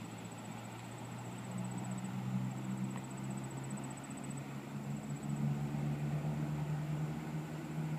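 A low mechanical hum of several steady pitches that grows louder about halfway through, with a faint high-pitched whine over it.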